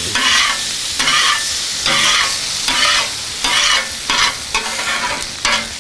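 Water sizzling into steam on a hot Blackstone steel flat-top griddle while a metal griddle scraper is pushed across the surface in a series of strokes, about one or two a second. The water is deglazing the cooktop, lifting balsamic vinegar residue off the steel.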